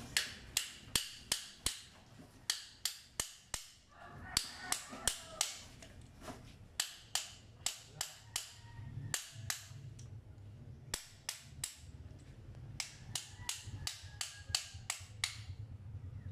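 Sharp metal taps from a hand tool striking a motorcycle's removed engine side cover, in quick runs of three to nine strikes about three a second, with short pauses between runs.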